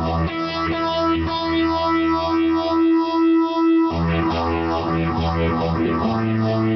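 Acoustic guitar being played, an instrumental passage with no singing. The bass notes thin out and drop away for about a second in the middle, then come back in.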